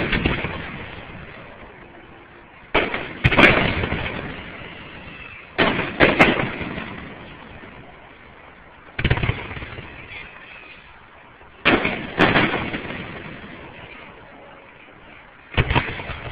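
Aerial firework shells bursting overhead: a bang every three seconds or so, most of them in pairs about half a second apart, each followed by a long fading rumble.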